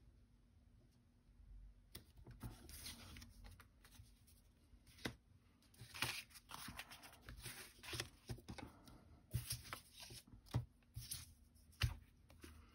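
Cardstock and patterned paper pieces being handled and laid down by hand: faint rustling and sliding with a few light taps, starting about two seconds in.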